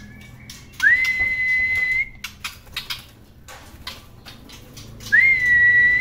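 Two long whistles held at one steady pitch, each scooping up briefly into the note and lasting over a second, about four seconds apart. Light clicks and taps are scattered between them.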